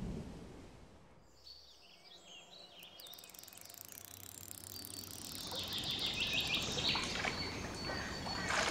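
Dusk outdoor ambience. A wash of rain noise dies away in the first second, then birds chirp, faintly at first and louder from about halfway through.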